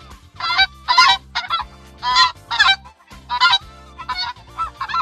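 Goose honking, a quick run of repeated nasal honks at about two to three calls a second.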